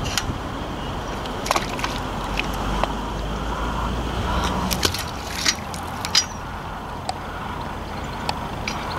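Steady outdoor background noise with a low rumble through the first half and scattered light clicks and knocks.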